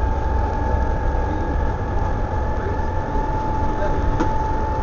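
Volvo B7TL bus's diesel engine and drivetrain running as the bus drives along, heard from inside the passenger saloon: a steady low rumble with a steady high whine over it. A single faint click about four seconds in.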